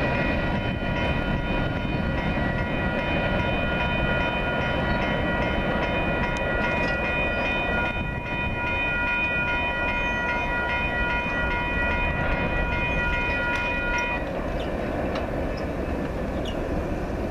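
Railroad grade-crossing warning bell ringing steadily over the rumble of a train on the tracks; the bell cuts off about fourteen seconds in.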